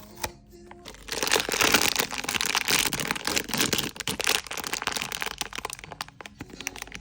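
Blind box packaging handled and crinkled: a sharp crack, then about six seconds of loud, dense crinkling as the wrapper is torn open and worked by hand, over soft background music.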